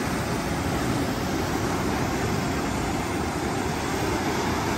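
Steady rushing noise of breaking surf and wind, heaviest and most uneven in the low range, with no clear buzz from the drone.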